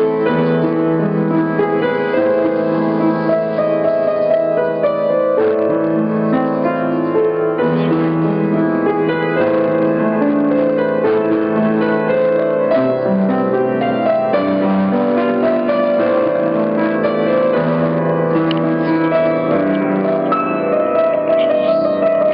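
Piano playing continuously: a line of higher notes over held low notes and chords.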